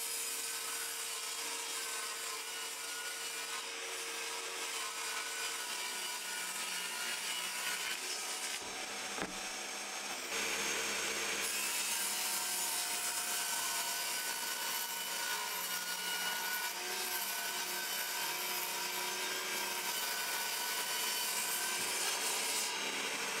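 Table saw running and ripping OSB panels to width, the blade cutting through the board steadily.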